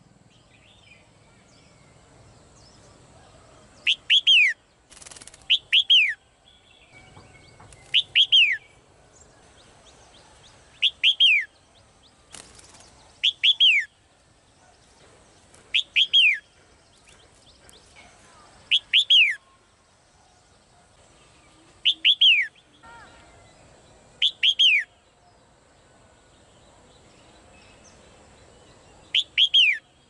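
Female red-whiskered bulbul calling: short phrases of two or three quick notes, each sliding steeply down in pitch, repeated every two to three seconds, about ten times. Two brief noises fall between calls, about five and twelve seconds in.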